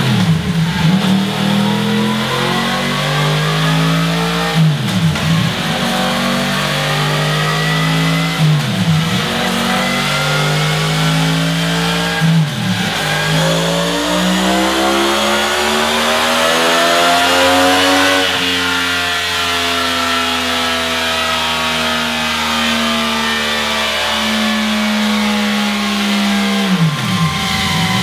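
Yamaha MT-10's crossplane inline-four through a Scorpion Serket Taper exhaust, revving under load on a dyno: the pitch climbs steadily for about 18 seconds, broken by brief sharp dips about every four seconds, then holds high and eases down slightly, dipping once more near the end.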